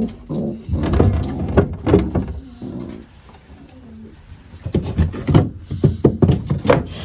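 Racing pigeons cooing for the first couple of seconds, followed near the end by a quick run of sharp clicks and knocks.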